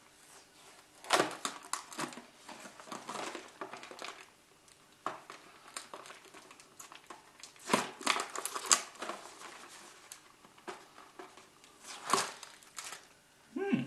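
Candy wrappers crinkling in irregular bursts as wrapped sweets are handled and unwrapped by hand, loudest about a second in, around eight seconds in and again near the end.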